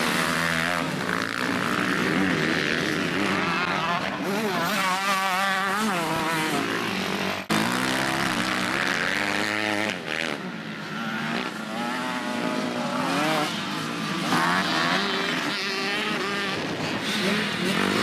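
Motocross motorcycle engines revving hard, their pitch rising and falling again and again as the throttle opens and closes and the riders shift gear.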